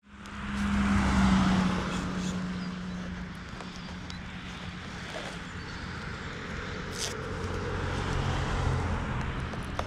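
A steady low motor hum, strongest in the first couple of seconds and swelling again near the end, with a few small clicks of hands handling the foam wing.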